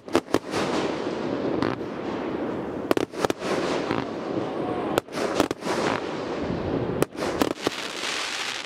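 Consumer aerial firework cake bursting: sharp bangs in quick clusters, about a dozen in all, over steady dense crackling from the bursting stars.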